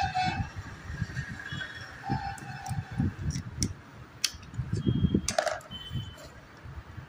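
Hands handling the opened mechanism of an Usha sewing machine while picking out jammed thread: irregular low knocks and rubbing, with a few sharp clicks in the middle. A faint steady horn-like tone sounds briefly at the start and again about two seconds in.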